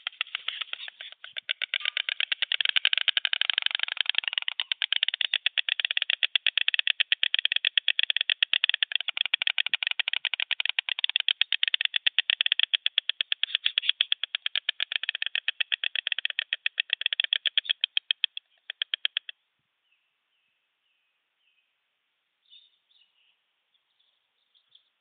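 White storks bill-clattering: a loud, rapid rattle of clicks, the greeting display of a pair at the nest. It stops abruptly about 19 seconds in after a short final burst, and a few faint bird chirps follow near the end.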